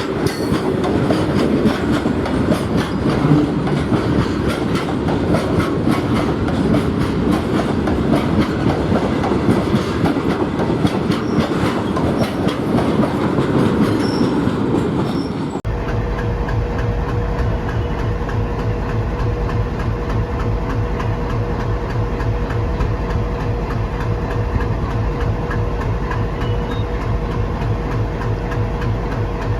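A train running past on the adjacent line, its wheels clattering over rail joints. About halfway through, the sound cuts abruptly to a diesel locomotive idling: a steady low throb with a steady hum, which in this setting is the ALCO WDM 3D at idle.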